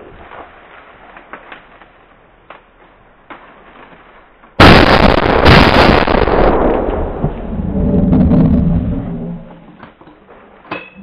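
Two very loud rifle shots at close range, about a second apart, overloading the microphone, with a long fading report. A lower pitched sound swells and dies away a couple of seconds later.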